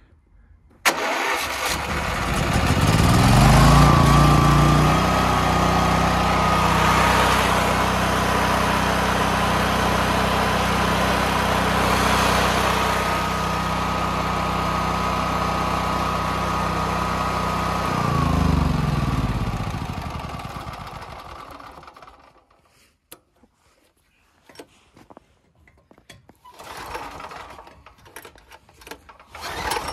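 A portable generator's engine starts suddenly about a second in, speeds up over a few seconds and runs steadily with a thin high whine over the engine note. At about eighteen seconds it is shut off and winds down to a stop over a few seconds.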